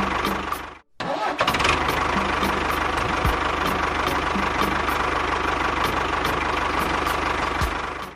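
Engine running steadily with a regular ticking. The sound drops out briefly just under a second in, then carries on.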